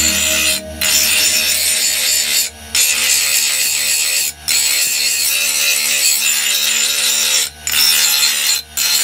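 A steel blade grinding against a motor-driven grinding wheel: a loud, harsh steady hiss over the hum of the spinning wheel, broken off briefly five times as the blade is lifted and set back on the wheel.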